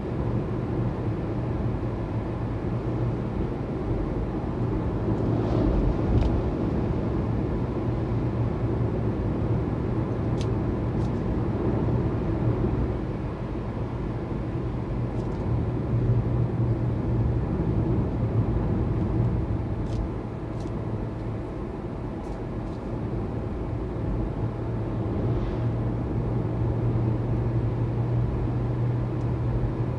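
Steady tyre and wind noise inside the cabin of a Hyundai Ioniq Electric cruising at about 90 km/h, with a low road hum and no engine note.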